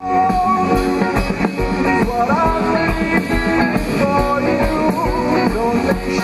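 Rock song with guitar and a singing voice, starting abruptly at a cut.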